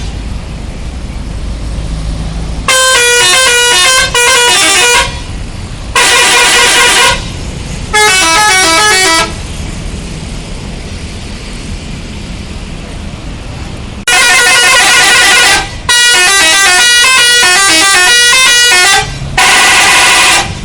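Telolet horn on the Agam Tungga Jaya bus 'Saylendra', a set of electric multi-trumpet bus horns, sounds loudly in seven bursts of one to three seconds. Each burst plays a short stepped melody of several notes at once. A low rumble from a vehicle engine fills the gaps between the bursts.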